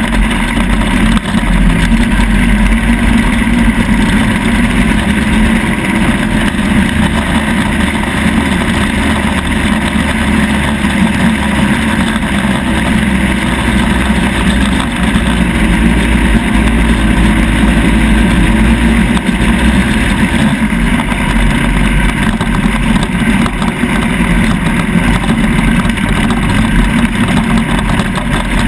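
ATV engine running steadily as the quad rides across sand, with a constant rush of wind noise on the microphone.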